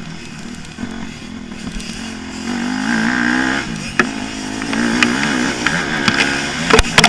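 Motocross bike engine heard from an onboard camera, its pitch rising and falling as the throttle opens and shuts, with a few sharp knocks near the end.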